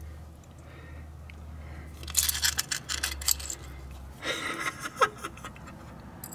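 Clicks and scrapes of a hand working in the pinion bore of a Chrysler 9.25 differential housing, in two short bursts about two and four seconds in, over a steady low hum.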